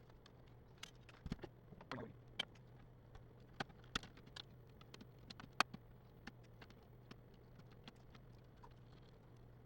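Scattered small clicks and taps from an HP Pavilion dv6 laptop being taken apart by hand, irregular and a few each second, over a low steady hum.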